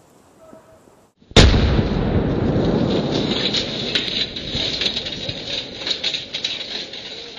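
A small smoking charge explodes about a second in with a sudden loud blast. A hissing, crackling rumble follows and slowly fades, with scattered sharp crackles as debris comes down.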